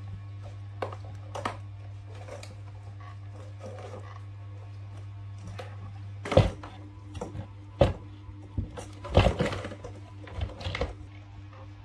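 Scattered knocks and clatter of handling, with several sharp louder ones in the second half, over a steady low electrical hum.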